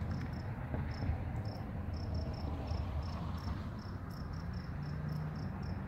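An insect chirping outdoors: short high chirps at one pitch, about four a second, over a steady low rumble.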